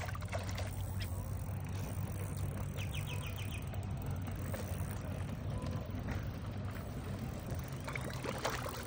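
A hooked trout splashing at the water's surface as it is played toward a landing net, with a burst of splashing near the end as the net reaches it. A steady low rumble runs under it.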